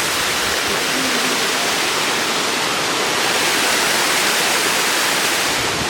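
Waterfall rushing: a steady, dense hiss of falling water that holds even throughout.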